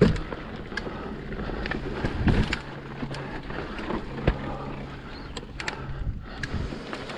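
Mountain bike ridden over rocky trail: sharp clicks and rattles from the bike, with heavier knocks right at the start, a little past two seconds and about four seconds in, over a steady rush of wind on the microphone.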